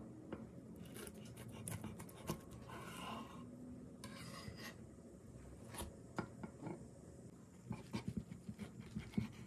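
Faint scattered clicks and rustles, then near the end a quick run of crisp crackles as a chef's knife cuts through a pan-toasted tortilla filled with cabbage and egg on a wooden cutting board.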